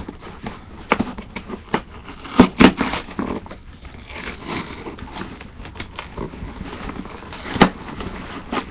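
Cardboard box being forced open by hand: irregular thumps and knocks against the box, with scraping and rustling of cardboard in between. The loudest knocks come twice about two and a half seconds in and once near the end.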